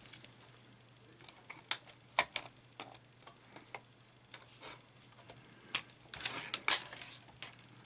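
Scattered light clicks and taps of metal retaining strips and a radio's metal chassis being handled and fitted together by hand, with a quick cluster of clicks near the end.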